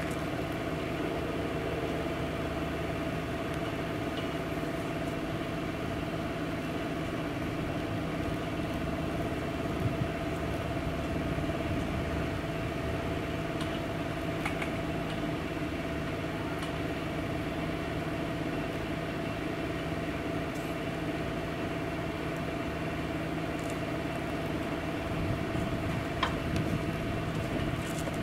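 Steady mechanical hum holding a few constant tones, unchanging in level, with a couple of faint clicks.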